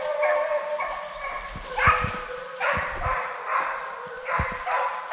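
Deer hounds baying on the trail of a deer: a string of about seven long pitched bays, roughly one a second.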